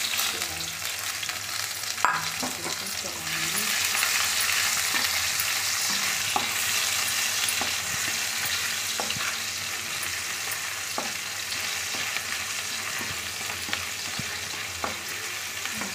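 Chopped onion and garlic sizzling in hot oil in a kadhai, frying toward golden brown. The sizzle swells about three seconds in, and the stirring spoon clicks against the pan every second or two.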